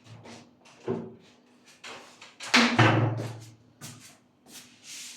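A series of short knocks and rustles from things being handled, with a louder, longer thud about two and a half seconds in.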